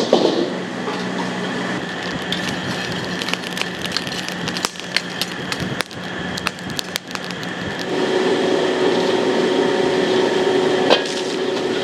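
Wok cooking at a street stall: a steady rushing noise and hum under quick metal clicks, knocks and scrapes of a spatula against the wok, densest in the middle. A higher steady hum joins about eight seconds in.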